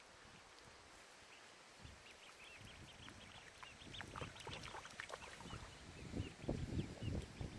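Ducklings peeping: many short, high chirps that start about a second and a half in and grow busier. Low rumbling noise builds underneath toward the end.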